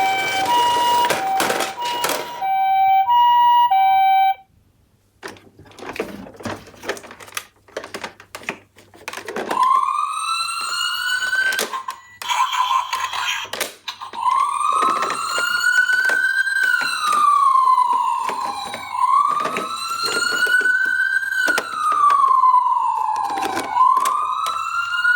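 Toy ambulance minicars' electronic sirens. For about the first four seconds one plays a two-tone hi-lo siren that cuts off suddenly; after a few seconds of small plastic clicks and knocks, another starts about ten seconds in with a wail that slowly rises and falls every four to five seconds, with clicks and knocks from the toys throughout.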